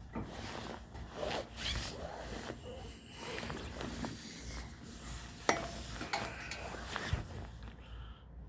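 Irregular rustling and scraping, with scattered clicks and one sharp knock about five and a half seconds in.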